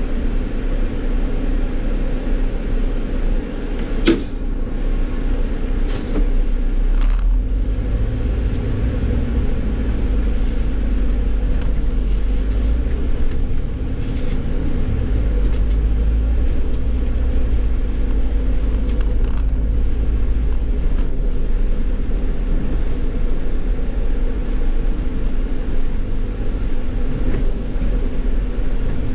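Iveco Cityclass city bus's Cursor CNG engine heard from the driver's seat: a steady low rumble while waiting at a red light, growing into a deeper drone about eight seconds in as the bus pulls away and cruises. A handful of sharp clicks sound over the first two-thirds.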